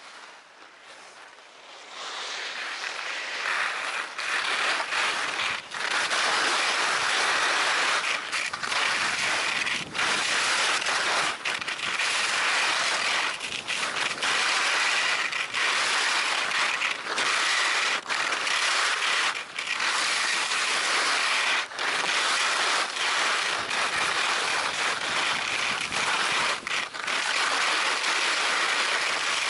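Skis scraping over groomed piste snow as the skier picks up speed about two seconds in, then a loud, steady hiss that dips briefly every second or so as the skis come off their edges between turns.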